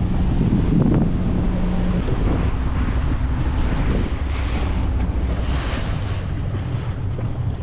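Small fishing boat's engine running steadily at sea, under wind buffeting the microphone and the wash of water; the hiss swells twice in the middle.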